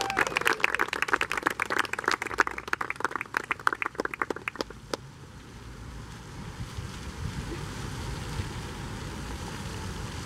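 Guests clapping, the applause thinning out and stopping about five seconds in; after that only a low rumble remains.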